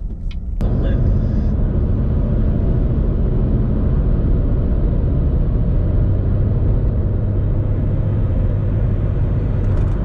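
Steady loud rumble and rush of a car moving at speed, its road and wind noise mixed with a Washington Metro train running on the track alongside; it starts abruptly under a second in.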